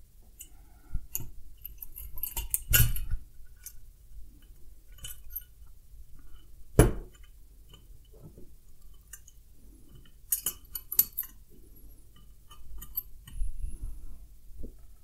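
Metal fittings and tools clinking and knocking against a chrome beer tower and a granite countertop while the tower is assembled. Scattered small clinks, with one louder knock about seven seconds in.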